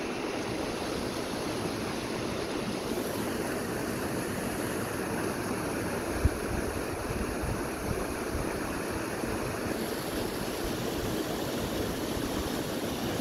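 Small mountain river rushing steadily over rocks and rapids. A single brief low thump comes about halfway through.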